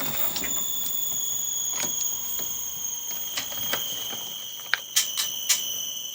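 Sony TC-RX50 cassette deck running under test, giving a steady high whine that slowly drops in pitch, with scattered clicks. It sounds bad, which the repairer puts down to a drive belt that is too loose or a capstan not spinning fast enough.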